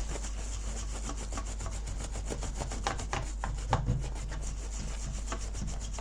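Quick repeated rubbing strokes on a circuit board, scrubbing flux residue off new solder joints.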